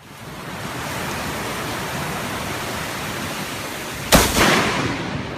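Steady hiss of heavy rain, then about four seconds in a sudden loud thunderclap from a close lightning strike, fading over about a second.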